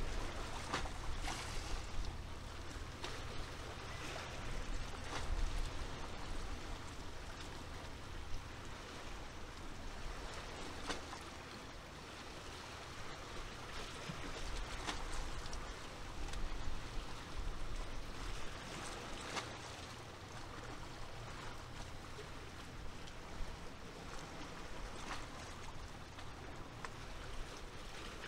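Small waves lapping and splashing at the water's edge every few seconds, over a low rumble of wind on the microphone.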